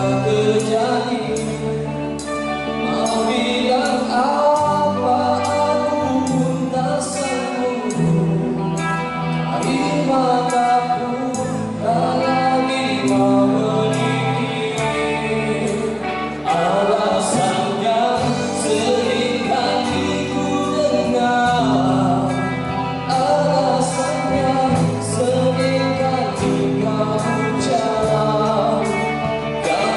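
A man singing a Malay song into a microphone over an amplified backing track, its bass notes changing every second or two.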